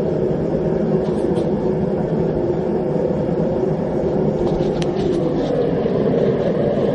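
Homemade propane gas forge burners, fed through drilled-out MIG contact tips, running with a steady roar just after being lit.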